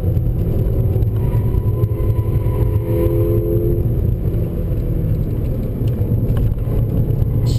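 Volkswagen Golf GTI Mk6's turbocharged 2.0-litre four-cylinder running at speed on a track lap, heard inside the cabin with steady road and tyre noise.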